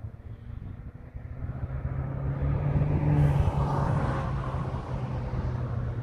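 Cars passing on a road: tyre noise and engine hum swell up to a peak about three seconds in, then slowly fade.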